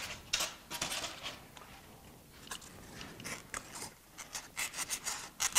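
Styrofoam crunching and scraping in short, irregular crackles as a thin sliver of foam is handled and worked into a gap between foam insulation boards. The crackles come closer together in the second half.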